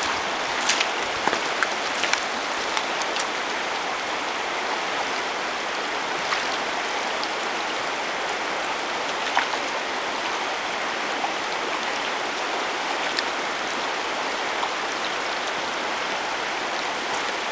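Steady rush of a shallow, fast river running over gravel and stones, with a few short sharp ticks in the first few seconds.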